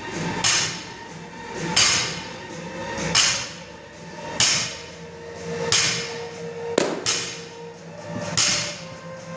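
A loaded barbell's plates knocking down on the gym floor at each deadlift rep, a sharp clank with a short ring about every second and a third, some seven times.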